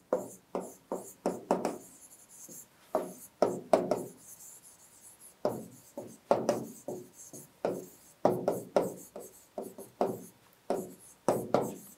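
Stylus tapping and scraping on the glass of an interactive display as words are handwritten, in many short, irregular strokes with brief pauses between letters.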